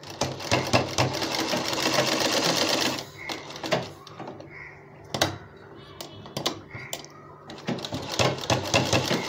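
Sewing machine stitching fabric in bursts: a fast run of about three seconds, a pause with a few separate clicks, then it runs again near the end.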